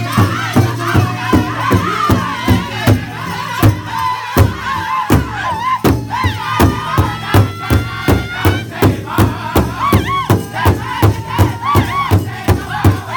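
Powwow drum group singing a Grand Entry song: a big powwow drum is struck in a steady beat, about two and a half strokes a second, under high-pitched men's voices. A long held note rises slightly through the middle.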